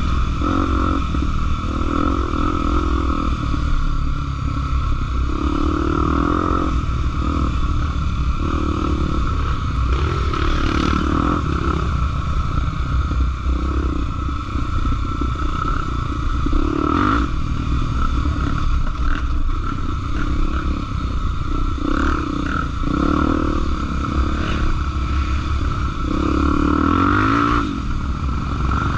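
Honda XR 250 Tornado trail motorcycle's single-cylinder engine running while riding off-road, its note swelling up and down repeatedly with the throttle, with occasional rattles and clatter.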